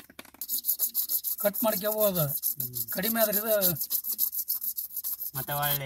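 Quick, even rasping strokes of a hand tool worked back and forth on PVC pipe, with men's voices talking over it.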